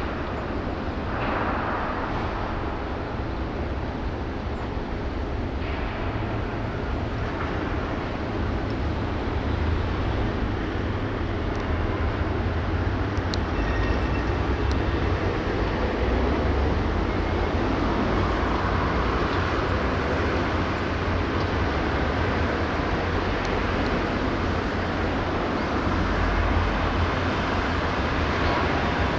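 Steady outdoor shipyard ambience: a low, fluctuating rumble under a noisy hiss, like distant machinery and traffic, with a few faint ticks. It grows a little louder about ten seconds in.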